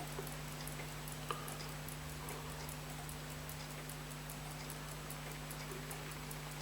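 A mechanical timepiece ticking quickly and faintly, about five ticks a second, over a steady low hum, with one sharper click about a second in.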